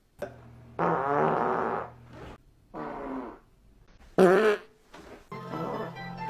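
Four farts in a row with short gaps between them: the first drawn out for about a second and a half, the third short and the loudest.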